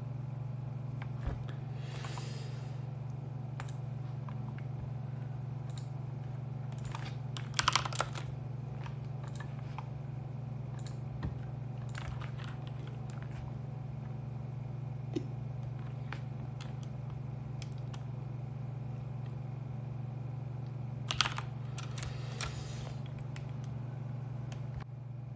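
Phone handled close to its microphone: scattered light taps and clicks with short rustles about eight seconds in and again about twenty-one seconds in, over a steady low hum.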